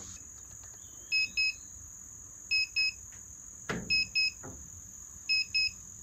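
Handheld pin-type wood moisture meter beeping in pairs, four double beeps about one and a half seconds apart, while its pins sit in the end grain of a green unsplit firewood round. Its HIGH light is lit at a reading of about 32–33% moisture. A single sharp click comes about halfway through.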